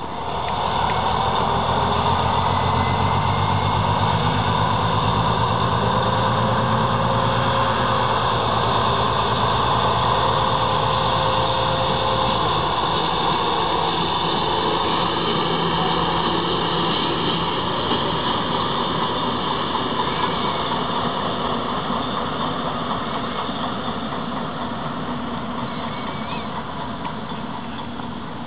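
Diesel engines of two ČKD class 740 type freight locomotives pulling past at the head of an arriving freight train, with wheels rolling on the rails. The engine drone is strongest in the first half and slowly fades as they draw away.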